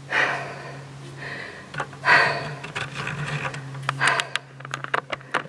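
Heavy breathing from someone hauling herself up steep steel stairs: about four hard breaths, then a quick run of sharp clicks and taps of hands and shoes on the metal steps near the end.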